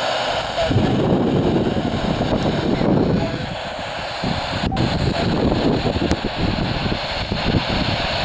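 FM static hissing from a handheld amateur radio's speaker, its squelch open while the dual-band yagi is aimed to pick up the SO-50 satellite's downlink. The rushing noise is steady and eases a little past the middle.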